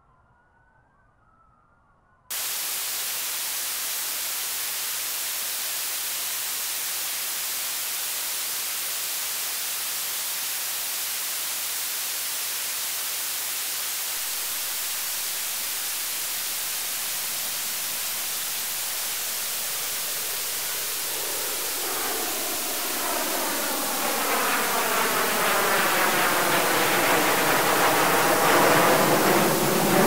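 A faint siren wails briefly, then about two seconds in a loud, steady radio static hiss cuts in abruptly: the station has gone off the air. From about 22 seconds in the static grows louder, with a sweeping, whooshing pattern rising through it.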